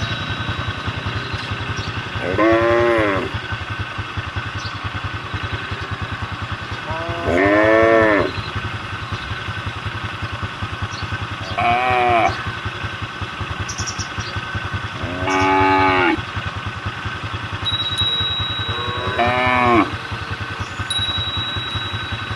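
Cattle mooing: five calls of about a second each, spaced roughly four seconds apart, over a steady low engine drone.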